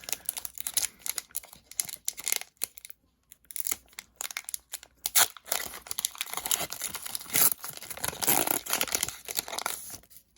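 Foil wrapper of a Pokémon trading-card booster pack being torn open and crinkled in the hands, an irregular run of crackles and rips that gets denser in the second half.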